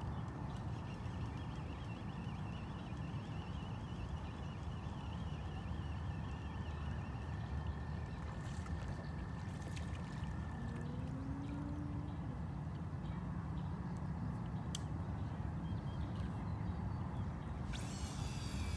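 Steady low outdoor rumble at the water's edge, with a single click about 15 seconds in and a brief whirring rattle near the end from the fishing reel as the rod is lifted.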